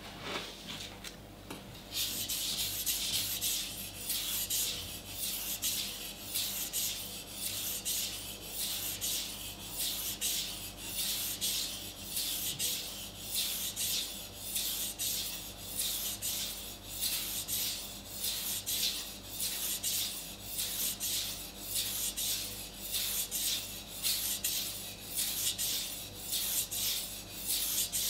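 A Global kitchen knife's steel blade stroked back and forth across a sharpening stone, a rhythmic rasping of about two strokes a second that starts about two seconds in.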